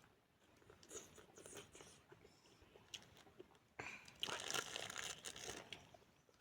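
Close-miked eating sounds: faint crunching and crackling from chewing food, with a louder crackling stretch a little after halfway through.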